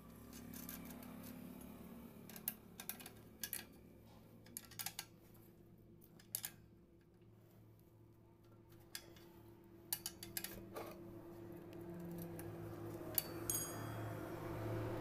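Light, irregular metallic clicks and taps from hand work on a motorcycle's rear drum-brake fittings, with a brief high metallic ring near the end, over a steady low hum.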